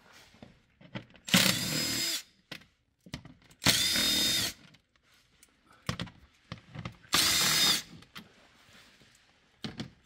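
Cordless power driver with an 8 mm socket spinning out bolts along a plastic bumper trim. It runs in three short bursts of under a second each, with a steady high motor whine in every burst and pauses between them as it moves from one bolt to the next.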